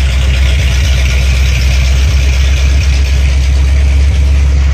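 454 V8 engine of a 1985 Champion Titan RV idling, loud and steady, running on open headers with no exhaust pipes fitted.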